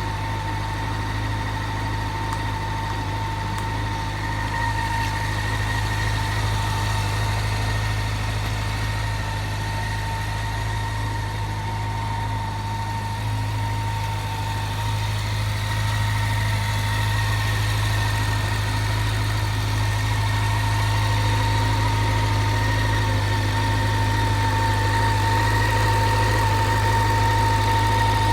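Honda CB400 Super Four (NC31) inline-four engine idling steadily, quiet and with no abnormal noises. A thin steady whine runs alongside, and the level rises slightly near the end.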